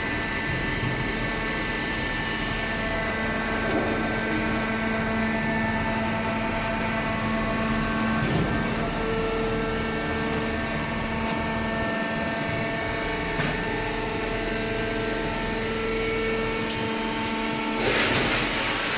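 A machine running steadily with a droning hum made of several held tones, with a brief louder rush of noise near the end.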